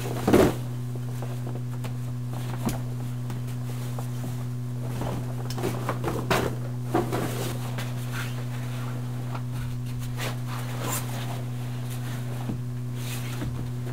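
Scattered scrapes and knocks of cavers moving over and handling loose boulders, heard over a steady low hum.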